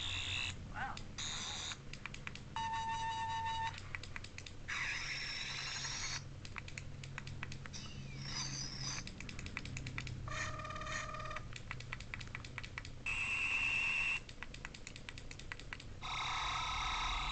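Toy sonic screwdriver playing a string of about seven different short electronic sound effects, each about a second long: steady tones, warbles and gliding pitches. Clicks fall between them.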